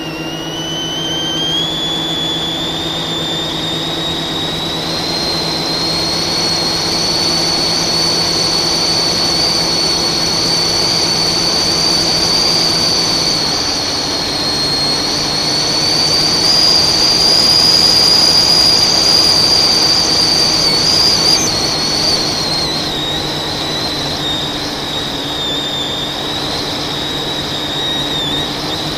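FPV quadcopter's brushless motors and propellers whining at flight speed. The pitch climbs over the first few seconds, then holds and wavers up and down with the throttle, dipping a little after about twenty seconds.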